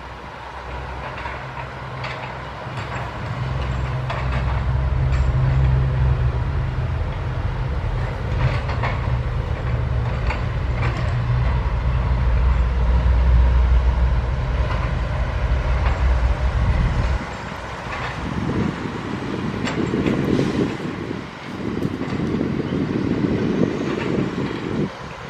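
Sany 135F hydraulic excavator at work: its diesel engine runs under load in a deep steady drone, with clanks and scraping from the working gear. About two-thirds of the way through the drone drops away, and a coarser rushing noise comes in two spells near the end.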